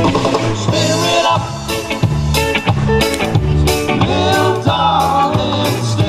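Live band playing a reggae song through a PA: guitars, a bass line and a drum kit keeping a steady beat, with a sung vocal line.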